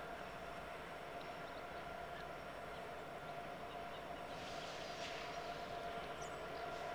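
Distant diesel freight train approaching head-on: a faint, steady hum of its locomotives over open-air hiss.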